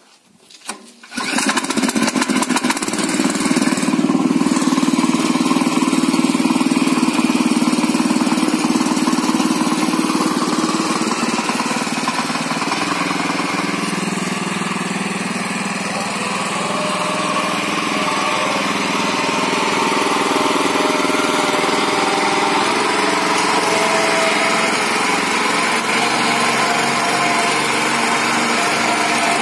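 Hecht 7100 two-wheel tractor's single-cylinder, four-stroke 5.5 hp petrol engine starting about a second in, then running steadily and loud while the tractor drives under load, its note shifting a little.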